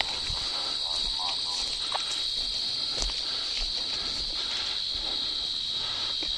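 Steady, high-pitched chorus of crickets and other insects, with a single sharp click about three seconds in.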